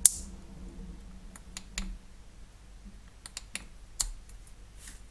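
Clicks from a Nitecore EDC35 flashlight's switch gear and from handling it in the hands: one sharp click at the start, then a scatter of lighter clicks and taps.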